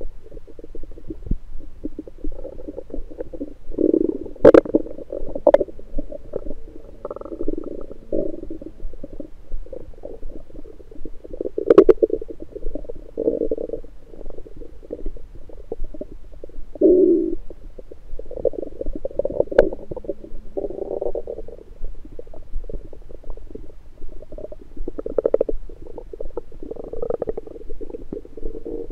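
Stomach and bowel sounds picked up through an electronic stethoscope on the belly after breakfast: irregular gurgles and rumbles of digestion that swell and fade, with a few sharp clicks.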